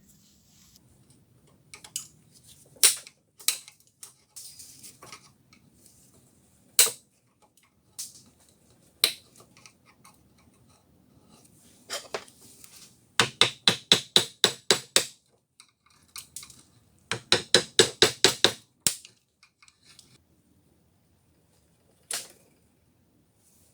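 Hammer strikes: a few scattered sharp blows, then two quick runs of about nine light taps each, some five or six a second, in the middle of the stretch.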